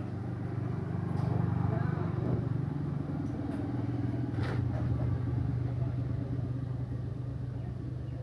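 A vehicle engine running steadily, with a slight swell a second or two in and a few light clicks.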